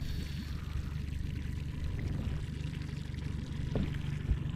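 A boat's motor running with a steady low hum, under constant water noise.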